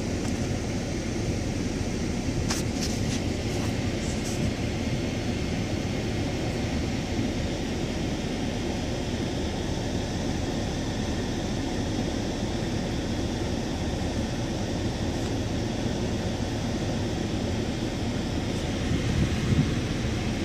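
Steady low drone of background noise, with a few faint clicks between about two and a half and four and a half seconds in.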